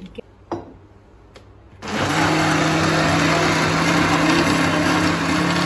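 A couple of light knocks, then, about two seconds in, a countertop blender is switched on and runs steadily with a loud, even motor hum, churning a half-filled jar of thick cultured cream to separate out butter.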